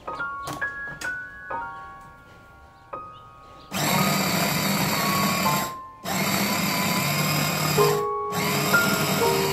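Soft plucked-note background music, then about four seconds in a Russell Hobbs electric mini chopper's motor starts, its blades grinding raw chicken into mince. The motor runs loudly in pulses, cutting out briefly twice as the button is released and pressed again.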